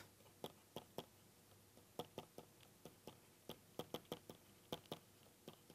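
A string of faint, irregular ticks and taps from a stylus tip on a tablet screen as handwritten labels are written.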